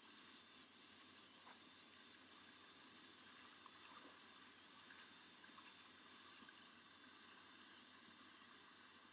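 A bird calling a fast, regular series of high, thin chirps, about four a second. The series breaks off for about a second near the end, then starts again.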